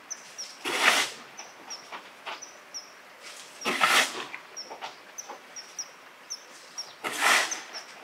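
Three loud, harsh animal calls, about three seconds apart, over a steady run of short, high-pitched peeps.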